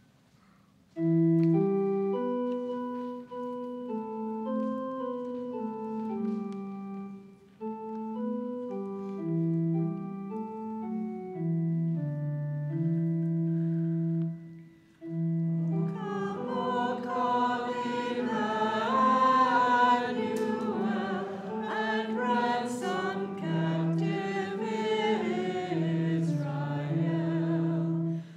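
Church organ playing a hymn tune in sustained chords, with two short breaks between phrases. About halfway through, a group of voices begins singing the hymn along with the organ.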